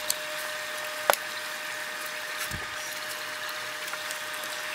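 Small aquarium filter pump running steadily with water moving. Over it come a sharp click about a second in and a short dull knock in the middle, from fittings being handled on the tank top.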